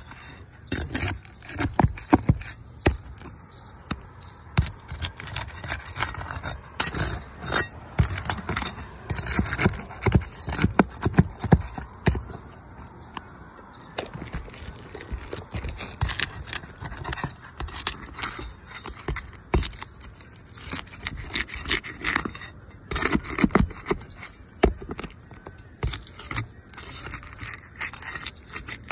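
Metal pry bar scraping and knocking against asphalt roof shingles as they are pried loose: a run of irregular clicks, taps and scrapes, easing off for a moment about halfway through.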